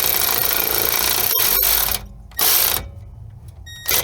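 Socket ratchet clicking rapidly as a nut is run down on a skid-plate bolt: a continuous run for about two seconds, then two short bursts of clicking.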